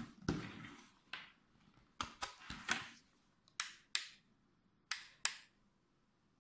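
Plastic push-button switch on a rechargeable LED work light clicking, pressed and released again and again to switch the lamp on and step through its settings; most presses give a pair of sharp clicks. A short rustle of handling comes first.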